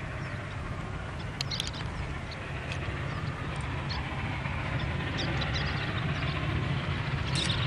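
Union Pacific 844, a 4-8-4 Northern steam locomotive, working hard at full throttle with a train that includes the DDA40X diesel 6936. Its exhaust and running gear make a steady, heavy, distant rumble that grows louder as the train approaches.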